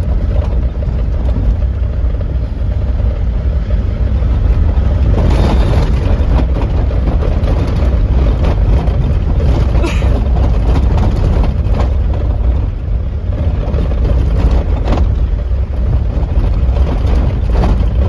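A vehicle driving along a rough dirt track, heard from inside: a steady low rumble of engine and tyres, with a few knocks and rattles along the way.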